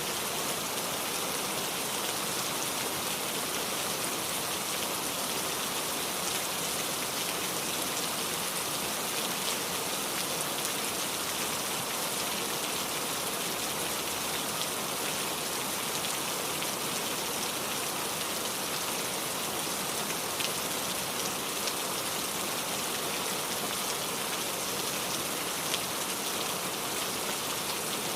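Steady rain falling: an even, continuous hiss with faint scattered ticks of single drops.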